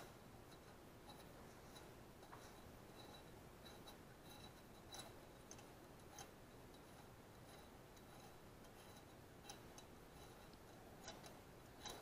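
Near silence, with a few faint, scattered light metallic clicks as a rocker-arm nut and rocker are worked loose by hand on a small overhead-valve engine's cylinder head.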